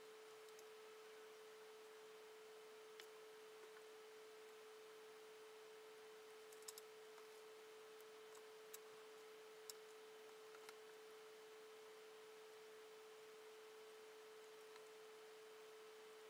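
Near silence with a faint steady single tone throughout. Over it come a few faint clicks as trim tape is handled, cut and pressed onto a model plane's fuselage.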